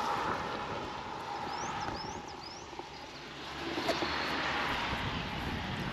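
Distant motor noise, a steady hum that eases after about two seconds and swells again, with small birds giving short rising chirps over it.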